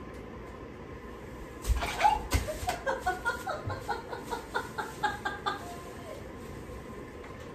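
Two low thumps about two seconds in as a woman comes down suddenly off an aluminium stepladder, then she laughs in short bursts for about four seconds.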